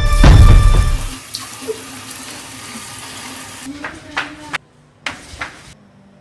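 Water running and splashing, loud for about a second and then dropping to a low hiss. Near the end come a few footsteps on a hard floor.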